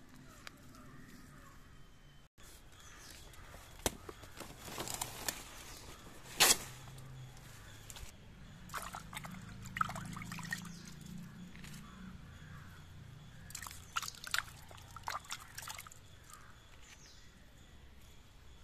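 Wet mud and muddy water sloshing, squelching and dripping as a hand works turmeric rhizomes out of a waterlogged hole, with scattered sharp clicks and rustles of handling; the sharpest comes about six seconds in.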